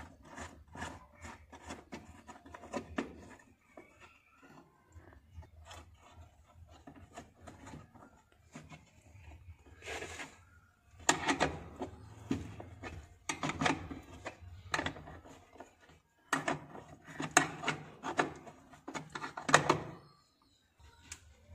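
A spanner or other hand tool and fingers working the nut on a car's petrol filter fitting while it is tightened. The sound is irregular metallic clicks, knocks and scraping, which come in denser, louder clusters in the second half.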